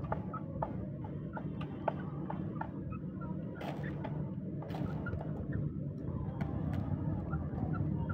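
Chickens pecking grain from a plastic feeder cup: quick, irregular beak taps, several a second, over a steady low hum, with two short rustling noises near the middle.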